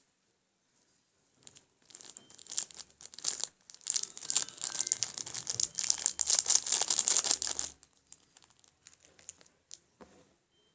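Crinkling and rustling of a baking soda packet being handled: a dense run of crackles from about two seconds in to nearly eight seconds, loudest in the second half, then a few scattered ones.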